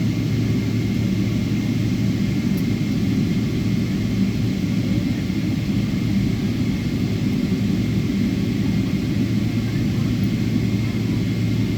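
Steady rumble of an airliner's cabin as the plane taxis after landing, with a thin high steady whine running through it.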